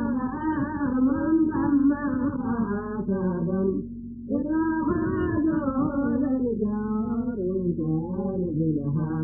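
A single voice chanting a melodic Mawlid praise song in long held phrases, breaking off briefly for a breath about four seconds in.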